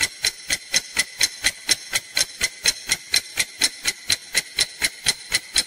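Clock-ticking sound effect timing a five-second countdown for an answer: steady, even ticks, about three a second.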